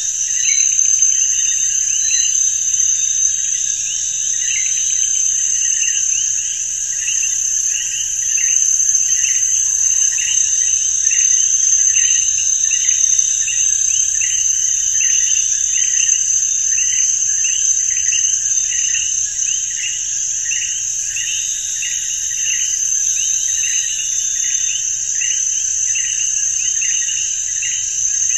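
Insects chirping: a steady high-pitched trill, with a lower chirp repeating about one and a half times a second.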